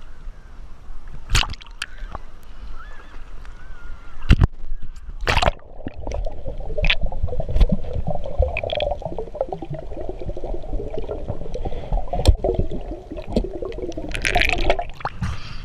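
Water sloshing and gurgling, with a few sharp knocks in the first six seconds, then a steady bubbling gurgle from about six seconds in.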